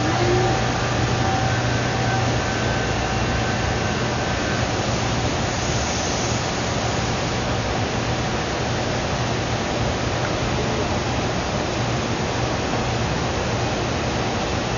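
Steady rushing noise with a low, even hum underneath, like a fan or air-handling unit running; a few faint high tones fade out about four seconds in.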